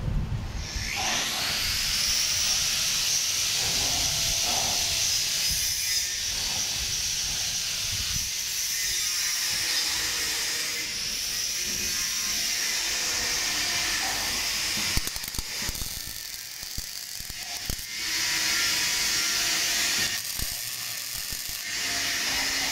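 MIG welding arc crackling and hissing steadily as a bead is laid with a Magmaweld RS 250 MK MIG welder, dropping off briefly twice in the last few seconds between runs.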